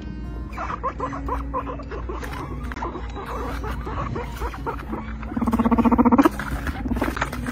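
Guinea pigs squeaking in a stream of short chirps, then, about five seconds in, a loud pulsing buzzy call lasting about a second.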